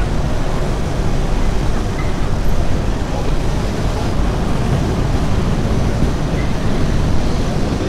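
A vintage Lisbon Tram 28 streetcar running along its rails, heard from on board at an open window: a steady running noise, strongest low down, with no distinct knocks or changes.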